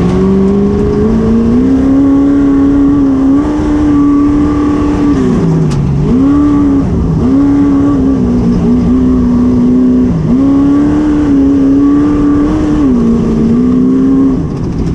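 Race truck engine heard from inside the cab, running at high revs under hard acceleration. The pitch climbs at the start, then drops sharply and recovers several times, deepest about six seconds in and again around seven and ten seconds, as the driver shifts or lifts off.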